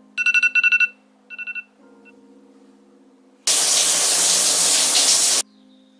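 Phone alarm beeping in two short bursts, then a shower running loudly for about two seconds before cutting off abruptly.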